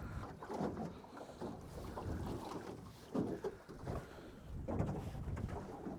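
Low wind rumble on the microphone with faint irregular knocks and water lapping.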